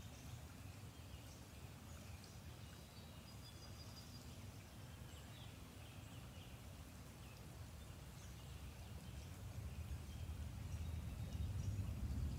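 Faint outdoor ambience: scattered short, high bird chirps over a low rumble that grows louder toward the end.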